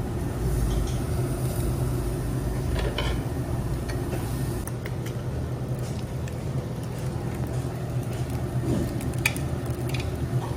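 Steady low rumble of a moving vehicle heard from inside, with a few faint clicks.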